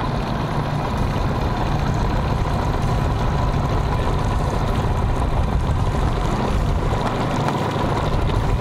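Outboard motor running steadily at low speed, a constant low drone with a thin steady whine above it.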